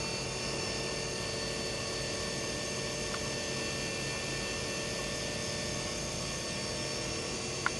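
Electric linear actuator's motor running steadily as it retracts, a constant hum with a fixed whine. One short click near the end.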